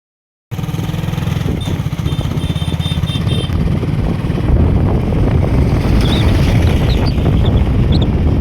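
A small engine running steadily with a rapid low thudding. Short, high, chirp-like tones come over it now and then.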